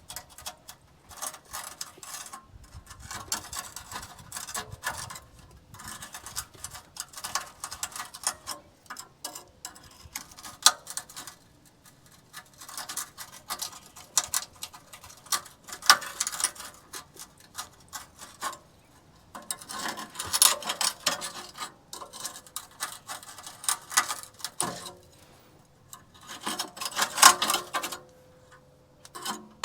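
Hand tools working on a rusted car exhaust joint: bursts of rapid metallic clicking and scraping, broken by short pauses, with a few sharper metal knocks.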